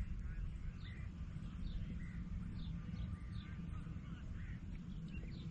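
Birds chirping in a series of short, quick falling notes over a low steady background rumble.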